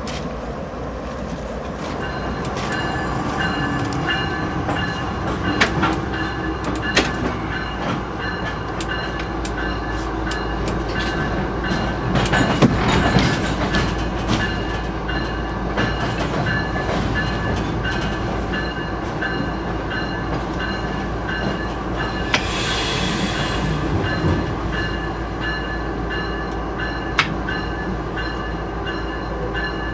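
A diesel locomotive heard from inside its cab, running steadily as the train rolls slowly through a rail yard, with scattered clicks and clanks over the track. A brief hiss comes about 22 seconds in.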